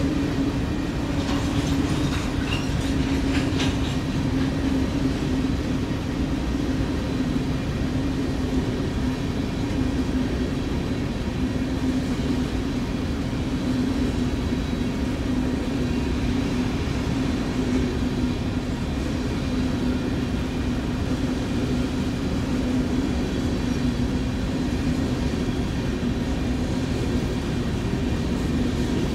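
Freight train rolling past: a steady rumble of wheels on rail with a low hum throughout, and a few sharp clicks in the first few seconds.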